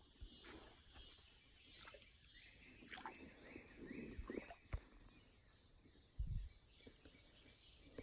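Faint outdoor ambience: a steady high-pitched insect drone with short chirps repeating several times a second in the middle stretch. A few soft knocks and a brief low thump about six seconds in.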